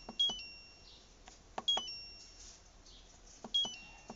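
Philips multicooker control panel beeping as its hour button is pressed three times to set the cooking time. Each press is a click followed by a short, high electronic beep that steps down in pitch, the cooker's key-press confirmation.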